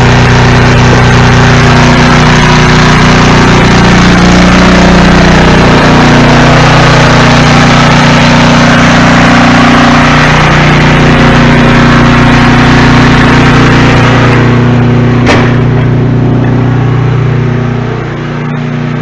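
Briggs & Stratton portable generator engine running steadily under its governor, its pitch shifting slightly now and then; the freshly cleaned carburetor has it running smoothly. About three-quarters of the way through there is a single sharp click, after which the engine sounds more muffled and a little quieter.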